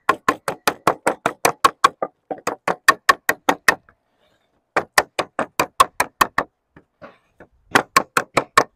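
Rapid, sharp blows of a lead-working tool on sheet lead laid over a timber batten, about six a second, in four runs broken by short pauses. This is the edge of the sheet being knocked over to form a 25mm welt.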